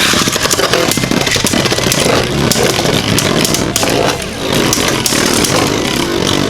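Two Beyblade Burst spinning tops, Vise Leopard and Nightmare Longinus, whirring and scraping across the plastic stadium floor. They clash repeatedly with sharp plastic clacks.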